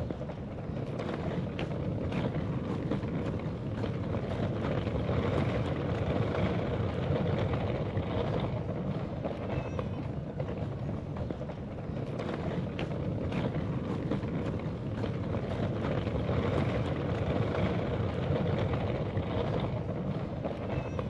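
Wheels of a rolling suitcase rumbling steadily over an asphalt path, with occasional small clicks.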